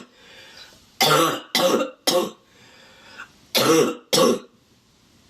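A young woman's barking cough: a run of three coughs about a second in, then two more near the end. She is congested and puts the cough down to the dusty, windy air.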